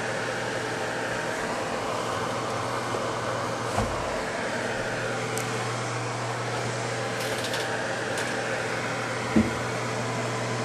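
Top-loading washing machine running with a steady motor hum. Two brief knocks come through, about four seconds in and again near the end.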